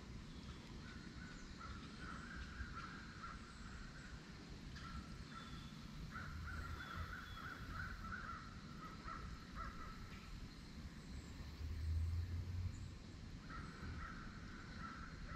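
Crows cawing in three runs of harsh calls, over a low rumble that swells briefly about twelve seconds in.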